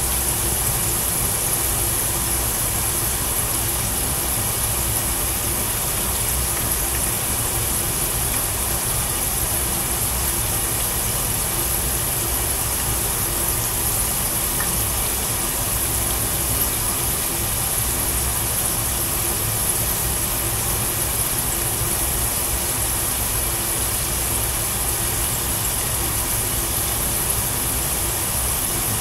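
Hot oil sizzling steadily as potatoes fry in a pan on a gas stove, an even hiss with a low hum beneath it.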